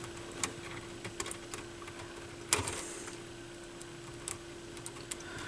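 Scattered light clicks and taps of small turntable parts being handled during repair work, with one sharper click about two and a half seconds in. A steady faint hum runs underneath.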